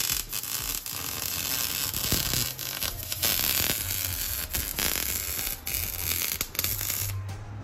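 MIG welder crackling steadily as a bead is run on a car's exhaust pipe, broken by short pauses in the arc. The crackle stops just before the end, leaving a low hum.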